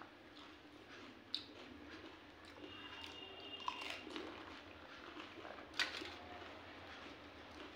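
Close-up eating sounds of pani puri: wet squishing and chewing of the crisp, water-filled fried puri shells. A few sharp cracks or clicks stand out, the loudest about six seconds in.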